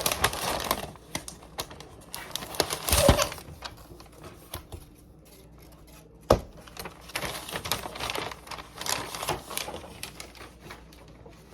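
Rustling and tapping of packaging as a new MacBook Pro is unwrapped and handled: scattered light clicks and rustles, with one sharp click about six seconds in.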